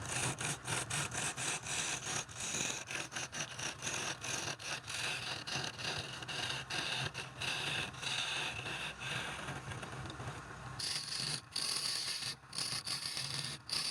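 Wood lathe running with a hand-held turning tool scraping against the spinning wood, in rapid uneven strokes over a low steady hum. About eleven seconds in the hum drops away and a higher scraping takes over.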